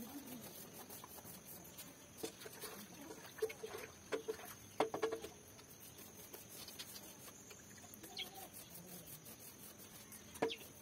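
Hens clucking, a run of short calls in the middle, with a single sharp tap near the end.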